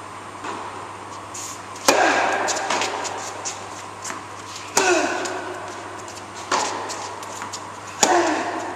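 Tennis ball struck hard by a racket in a rally, in an echoing indoor tennis hall: four sharp pops a second and a half to three seconds apart, each ringing on in the hall, with fainter ticks in between.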